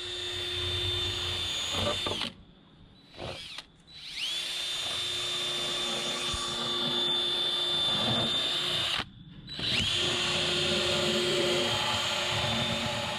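A cordless drill at its highest speed drives a round deburring bit that cuts the foam core from between fiberglass skins, giving a steady high whine. The whine drops out twice and each time spins back up, rising in pitch.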